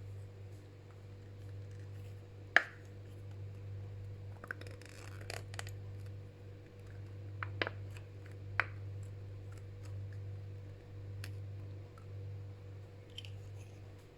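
Plastic spoon stirring a shampoo-and-toothpaste slime mixture in a bowl, with scraping and scattered sharp clicks of the spoon against the bowl; the loudest click comes about two and a half seconds in. A low steady hum runs underneath.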